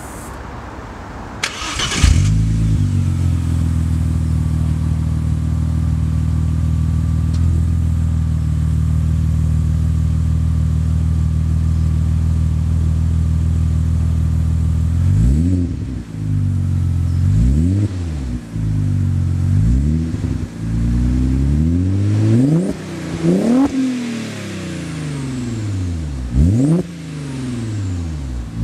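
Audi B5 RS4's 2.7-litre twin-turbo V6 heard at the tailpipes of a Milltek exhaust with 3" decat downpipes. It fires up about two seconds in and settles into a steady idle. From about halfway it is revved in a series of short throttle blips, each rising and falling back.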